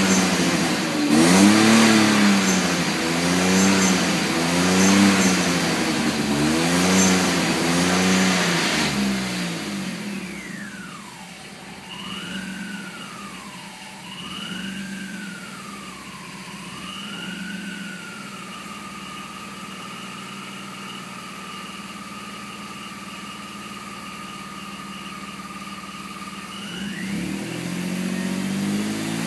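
BMW M50 stroker inline-six revving up and down in repeated blips for about nine seconds, then dropping back to idle, where the speed dips and surges a few times in shrinking swings before settling to a steady idle. The revs climb again near the end. The engine is known for a rough idle.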